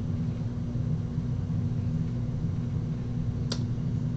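Steady low electrical or mechanical room hum, with a single short click about three and a half seconds in.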